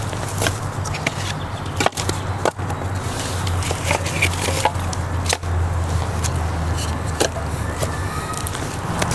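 Irregular sharp knocks and clicks, as of wood being handled or struck, over a steady low hum.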